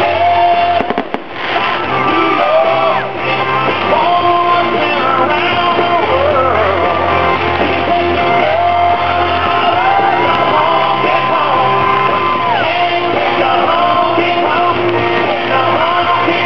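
A rock song with a singing voice plays throughout. A few sharp bangs of fireworks come through about a second in.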